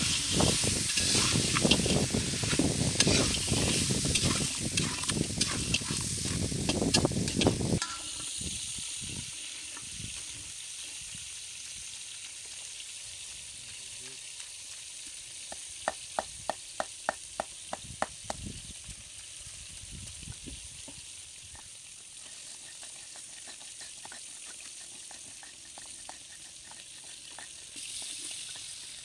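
Crabs frying in hot mustard oil in an iron kadai, loud and dense, with a spatula stirring and scraping; it cuts off about eight seconds in to a quieter steady hiss. In the middle come about ten sharp knocks, about three a second, of a stone pestle pounding spices on a stone grinding slab.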